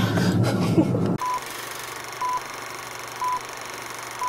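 Car interior noise for about a second, cut off suddenly; then film-leader countdown beeps, short single tones one per second, four in all.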